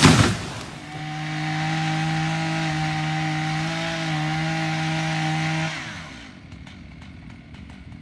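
A felled tree crashing to the ground, followed by a chainsaw running steadily at high speed for about five seconds before it stops.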